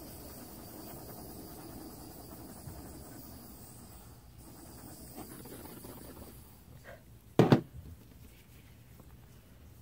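Small handheld torch flame hissing steadily for about six seconds, then dying away. About seven and a half seconds in there is one sharp knock.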